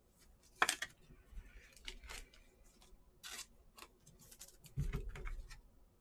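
Trading cards being handled on a table: a string of short crisp rustles and clicks as cards are picked up and slid, the sharpest about a second in, with a soft bump near the end.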